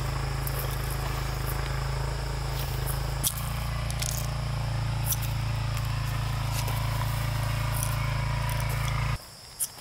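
A small motor runs with a steady low hum, then cuts off abruptly near the end; insects chirr steadily throughout.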